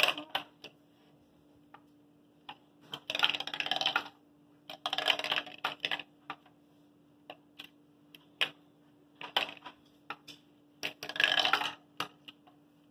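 A small marble rolling and rattling through a Lego-brick marble maze as it is tilted by hand: three runs of rapid clicking, about three, five and eleven seconds in, with single sharp clicks as it knocks against the brick walls in between.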